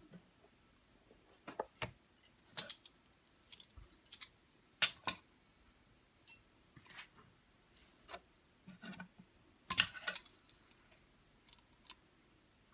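Scattered light clicks and taps of a metal pizza-cutter wheel and fingers working rolled dough on a stone countertop. About a dozen come at uneven intervals, the loudest near the middle and again about three-quarters of the way through.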